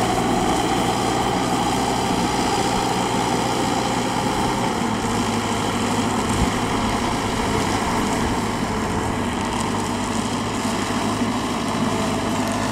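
Kubota V2403 turbo four-cylinder diesel of a converted riding tiller, running steadily under load as it drives its cage wheels through flooded paddy mud.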